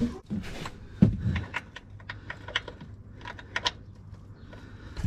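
A socket wrench working a tight 17 mm oil-sump drain plug loose: a sharp knock about a second in, then irregular metallic clicks and clinks as the plug is undone.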